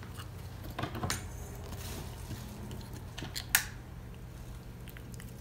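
A small dog gnawing on a bone-shaped chew treat: irregular crunches and clicks, the loudest about a second in and again about three and a half seconds in.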